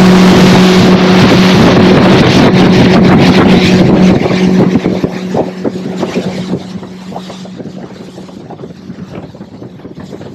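Boat's outboard motor running under way with rushing wind and water noise, a steady engine tone; it eases off and gets quieter about four seconds in.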